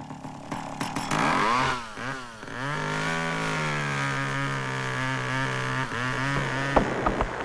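Two-stroke chainsaw revving up and down several times, then running at a steady held pitch, with a few sharp cracks near the end.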